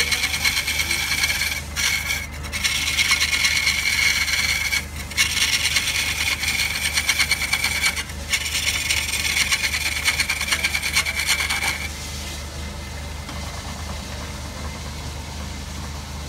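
Turning tool cutting into a log spinning on a wood lathe: a loud, rough, shaving sound with a steady ring, broken by a few short pauses. The cutting stops about twelve seconds in, leaving the lathe running with a low hum.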